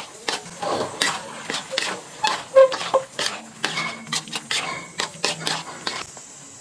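Steel spatula scraping and knocking against a wok while stirring a thick, steaming curry: a quick run of clinks and scrapes, with one louder ringing clang about two and a half seconds in. The stirring stops near the end.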